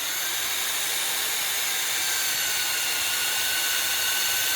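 Power drill running continuously while drilling a guide hole into a wooden garage door. It is a steady motor whine over a hiss, and the pitch creeps up slightly. The drill is set in reverse, so the bit spins backwards.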